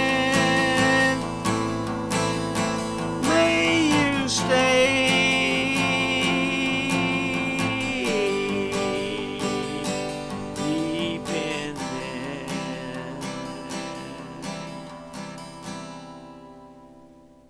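Instrumental ending of a country-style song: acoustic guitar strumming under a lead line that bends in pitch, fading out steadily to near silence by the end.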